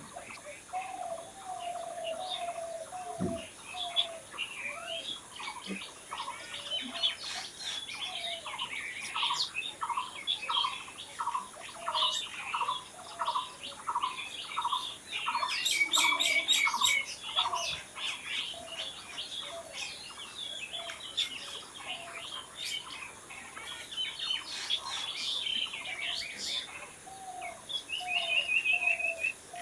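Several wild birds chirping and singing together. Through the middle one bird repeats the same short note a little more than once a second, and a dense flurry of chirps near the middle is the loudest part.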